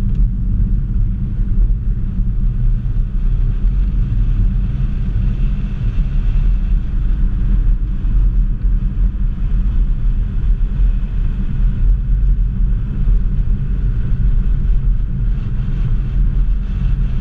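Ford Focus ST's turbocharged 2.0-litre four-cylinder engine and road noise heard from inside the cabin while the car is driven: a loud, steady low rumble.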